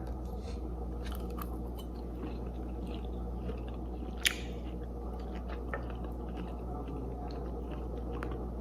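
A person chewing a bite of shake-and-bake breaded pork chop: faint chewing with small crunchy clicks, and one sharper click about four seconds in, over a steady low hum.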